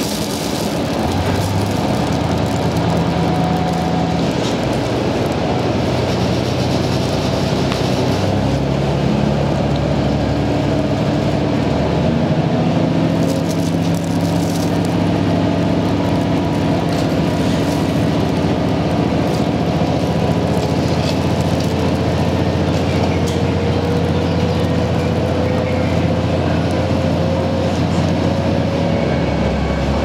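Diesel engine and running gear of a KiHa 110 series railcar heard from inside the cabin as it pulls away from a station and gathers speed. The engine note changes about 8 seconds in and then climbs steadily toward the end.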